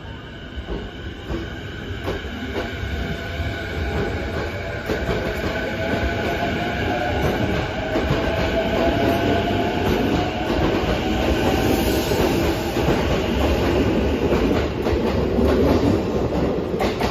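JR Nambu Line E233-series electric commuter train pulling out of the station. Its motor whine rises slowly in pitch as it gathers speed, with wheels clicking over rail joints. It grows louder as the cars pass close by, then cuts off suddenly at the end.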